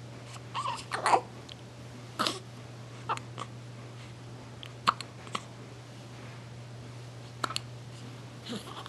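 A person hiccuping repeatedly, in short sharp catches of breath that come at uneven gaps of about half a second to two seconds, over a steady low electrical hum.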